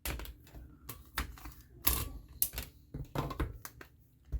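A small star stamp tapped repeatedly on an ink pad and pressed onto cardstock: a run of irregular sharp taps and clicks.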